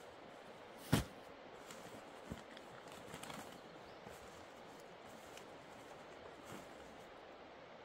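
A sharp knock about a second in, then a softer knock and a few light taps and clicks over steady outdoor background noise.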